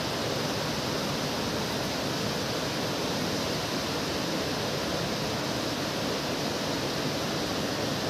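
Waterfall and fast-flowing stream rushing over rocks: a steady, unbroken roar of white water.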